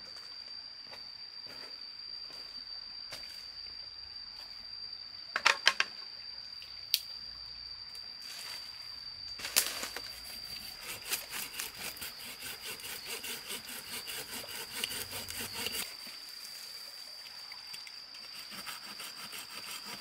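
A steady, high insect drone, with a few sharp knocks about five to ten seconds in, then several seconds of rapid clicking and crackling.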